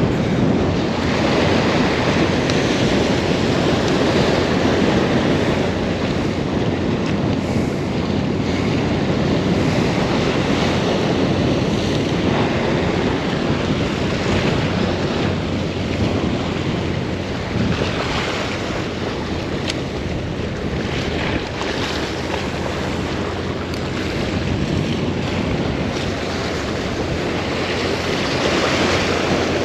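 Surf washing in and out, swelling and easing every few seconds, with wind rumbling on the microphone.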